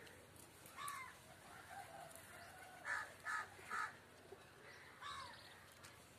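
Faint bird calls: a single call about a second in, three quick calls in a row around the middle, and one more near the end.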